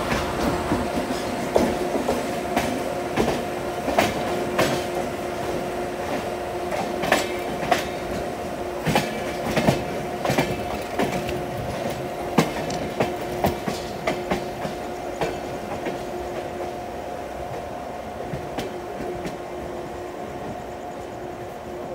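Moving express train's wheels knocking irregularly over rail joints and points, over a steady rumble with a constant droning whine, heard from a coach doorway; the sound eases slightly near the end.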